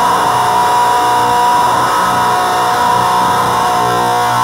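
Loud, steady distorted drone from a guitar effects chain, a Boss HM-2 distortion and a Malekko Chaos pedal, through a Headrush speaker cabinet. A few held tones sit over a dense buzzing noise, with no new notes struck.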